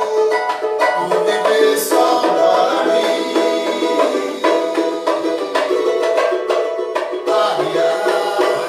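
Live samba music from a band: a cavaquinho strumming over steady percussion.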